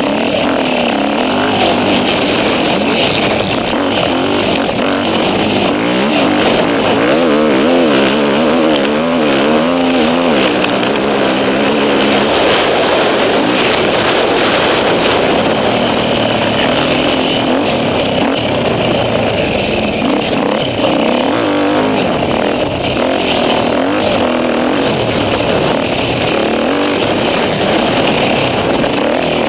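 Enduro motorcycle engine revving hard, its pitch rising and falling again and again as the rider accelerates and shifts along a dirt track.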